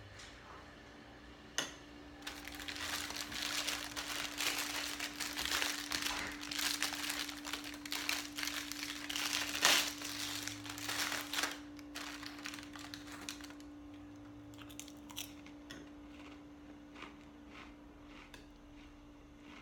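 White paper crumpled and crinkled in the hands for about ten seconds, loudest near the end of that stretch, then a few scattered light clicks. A faint steady hum runs underneath.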